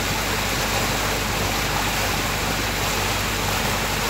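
Cruise boat under way: a steady low engine hum under a constant rush of water along the hull.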